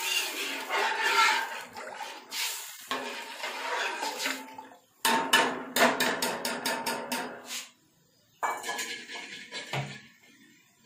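A ladle stirring a steel pot of watery rice-and-lentil khichuri: the liquid sloshes, and the ladle scrapes and knocks against the pot. About five seconds in comes a rapid run of knocks, several a second, followed by a brief pause and softer stirring.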